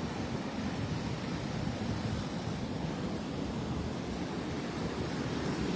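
Rough surf washing onto the beach in a steady rush, with wind buffeting the microphone.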